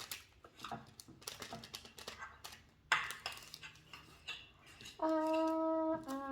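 Light clicking, tapping and clinking of small containers and utensils as slime-kit toppings are shared out, with one sharper knock about three seconds in. Near the end a steady held note sounds for about a second and then drops a step in pitch.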